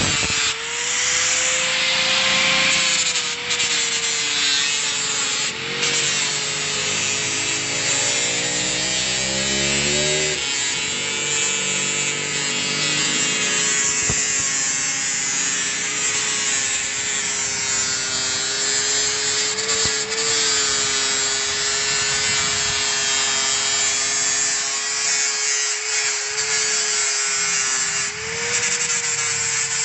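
Electric angle grinder with a buffing wheel running steadily while it polishes a metal motorcycle exhaust pipe: a steady motor whine over a rough rubbing hiss. The pitch sags a little as the wheel is pressed on and rises again near the end as the load comes off.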